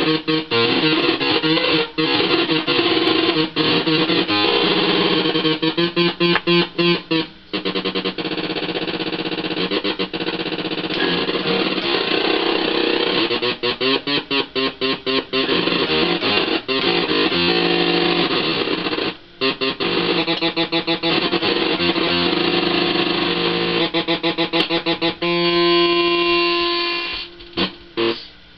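Electric guitar played through the breadboarded fuzz section of a Schumann Two Face pedal, switched into oscillation: a heavily distorted, sputtering sound that keeps cutting in and out rapidly. Near the end it settles into a held tone, then breaks up. It is a real noisemaker, the fuzz's oscillation taking over the guitar.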